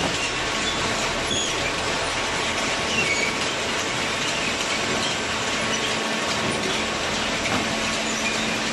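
Steady mechanical running noise with a few faint high squeaks over it.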